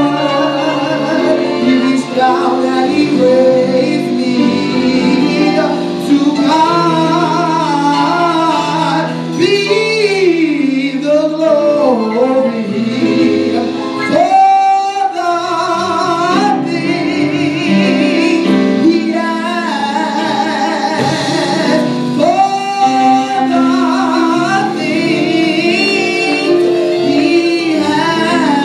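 Live gospel song: a male vocalist sings with long, sliding vocal runs, backed by a band of keyboards, drum kit, bass guitar and saxophone.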